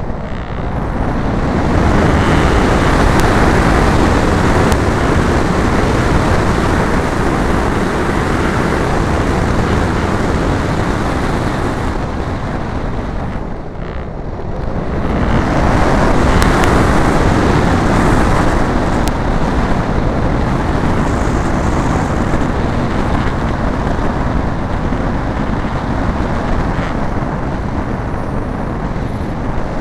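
Wind rushing over a camera mounted on a radio-controlled model airplane in flight: a steady rush of airflow noise that swells and fades with airspeed, dipping briefly about fourteen seconds in.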